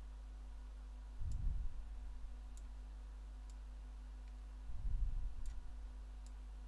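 Faint computer mouse clicks, about six of them, over a steady low electrical hum. Two louder low, muffled bumps come about a second in and about five seconds in.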